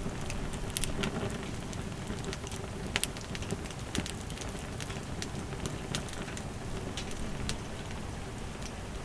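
Wood fire crackling: sharp, irregular pops over a steady hiss.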